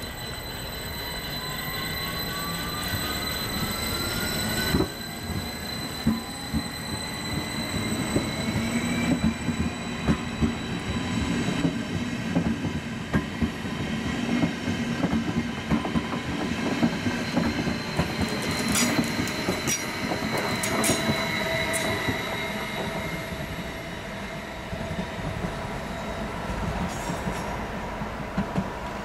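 Stadler KISS double-deck electric multiple unit pulling away: its electric drive gives a whine that rises steadily in pitch over the first ten seconds or so as it accelerates, over a low running rumble. About two-thirds of the way through come a cluster of sharp wheel clicks.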